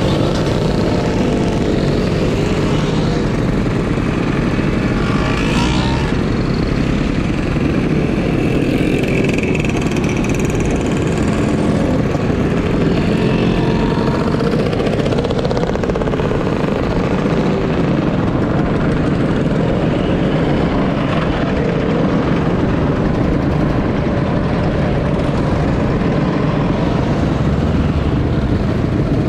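A procession of vintage Vespa and Lambretta scooters riding past one after another, their small two-stroke engines running and revving, rising and falling in pitch as each goes by. A larger motorcycle passes near the end.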